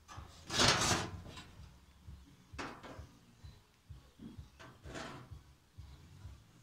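Welded sheet-steel floor panel being handled and turned over, scraping and knocking against the metal floor pan in a few short rushes. The loudest comes about a second in.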